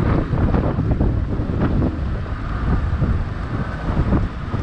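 Wind buffeting the camera's microphone over the steady running of a Yamaha XTZ 250 motorcycle's single-cylinder engine while riding.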